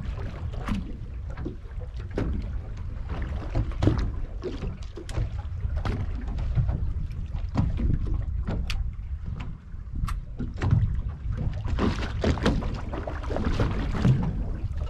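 Water slapping against the hull of a drifting boat: irregular short slaps over a low rumble of wind on the microphone.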